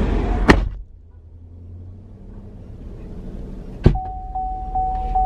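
Car door shutting with a sharp clunk about half a second in, cutting off the outside noise, then another sharp clunk near four seconds followed by a steady electronic chime tone.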